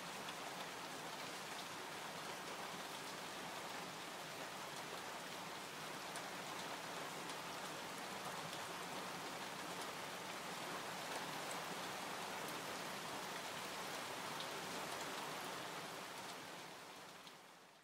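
Steady rain falling, with scattered faint drop ticks, fading out near the end.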